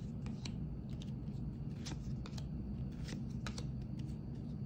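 Stack of 2022 Topps MLS soccer trading cards thumbed through by hand: a string of light, irregularly spaced flicks and clicks as each card slides off the next.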